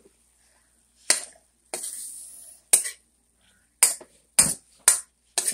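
A metal spoon scraping and clinking against a frying pan as ground beef and onions are stirred. About seven short strokes, with one longer scrape about two seconds in.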